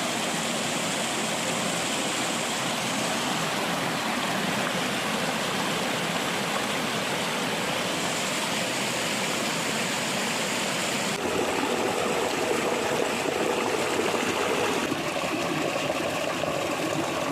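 Water of a rocky stream rushing and splashing in a steady flow. About eleven seconds in it grows a little louder and fuller.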